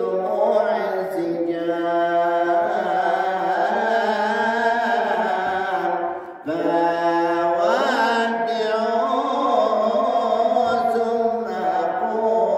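A man singing a slow Ramadan farewell hymn solo into a handheld microphone, with long held notes that waver and glide. He breaks off briefly for a breath about six seconds in.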